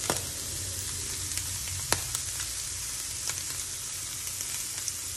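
Shrimp frying in a hot pan: a steady sizzle with scattered sharp pops, the loudest about two seconds in.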